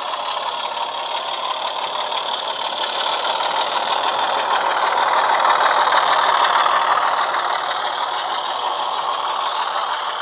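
Model Class 24 diesel locomotive's DCC sound, an ESU LokSound 5 decoder playing a Class 25 Sulzer diesel engine sound file through a small sugarcube speaker, running under power, mixed with the rolling rumble of the model's wheels and coaches on the track. The sound grows louder as the train comes closest about six seconds in, then fades.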